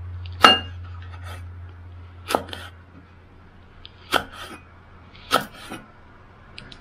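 Kitchen knife slicing red spur chilies on a cutting board: single sharp knocks of the blade on the board, about five, spaced one to two seconds apart.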